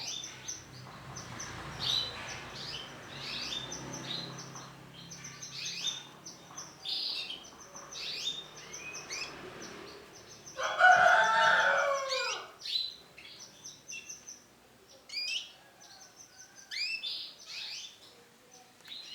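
Female canary chirping: short, repeated high calls, scattered in irregular clusters. About eleven seconds in, a louder, lower bird call lasts about two seconds and drops in pitch at its end.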